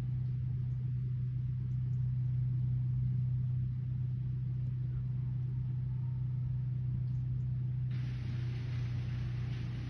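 A steady low mechanical hum, like an engine running, with a faint rumble beneath it.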